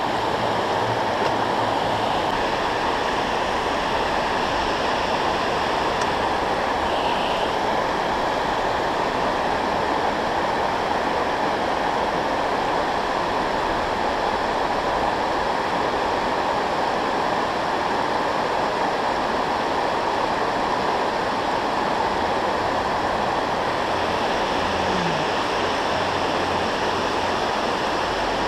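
Water pouring over a low dam spillway, a steady rush of falling and churning water.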